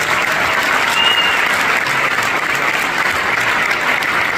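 Concert audience applauding steadily. A short high tone cuts through about a second in.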